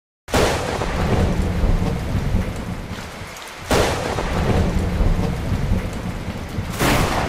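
Thunderstorm: steady heavy rain with a deep rumble, broken by three sudden claps of thunder, one right at the start, one about halfway through and one near the end.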